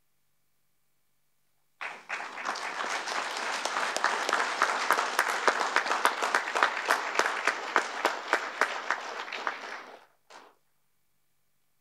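Audience applause that starts suddenly about two seconds in, with single sharp claps standing out through it. It stops at about ten seconds, with a brief last patter just after.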